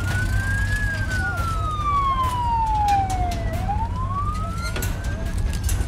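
An emergency-vehicle siren wailing in a slow rise and fall: up, a long fall, then up again near the end, over a low rumble and scattered sharp pops and clicks.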